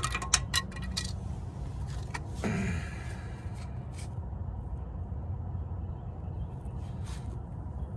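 Clicks and a short scrape from handling a rear brake caliper and its sticking slide pin, over a steady low rumble. There are several sharp clicks in the first second, a brief scrape about two and a half seconds in, and single clicks later.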